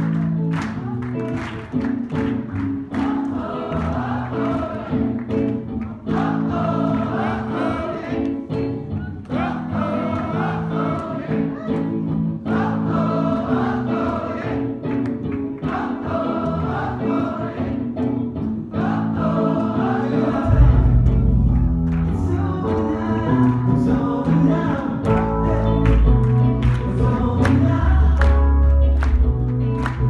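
Live soul music: many voices singing a short phrase over and over over a keyboard, the phrase repeating about every two seconds. A heavy bass line comes in about two-thirds of the way through.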